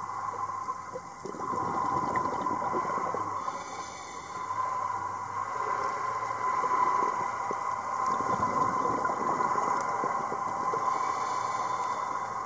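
Underwater ambient noise: a steady hum with fine crackling and water hiss that swells and eases every few seconds.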